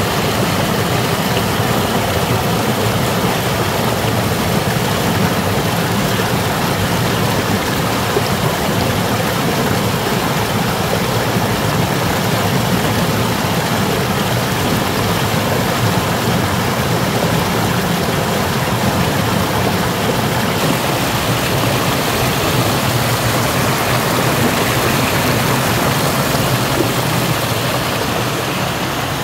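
Stream water rushing steadily, a loud even wash of running water.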